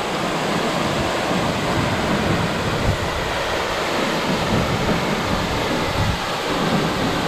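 A tall waterfall plunging into a rocky pool: a loud, steady rush of falling water.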